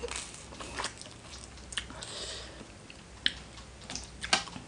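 Close-miked chewing of som tam (spicy papaya salad with seafood) and raw vegetables: moist chewing broken by a handful of short, crisp crunches, the loudest near the end.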